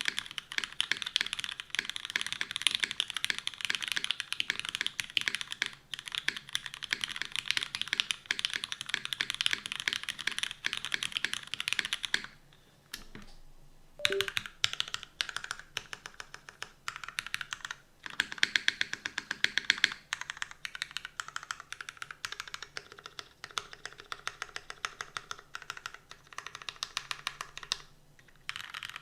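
Custom mechanical keyboard with lubed Cherry MX Black linear switches on an aluminum plate and GMK keycaps, typed on in fast, continuous keystrokes. The typing pauses for nearly two seconds about twelve seconds in, then resumes.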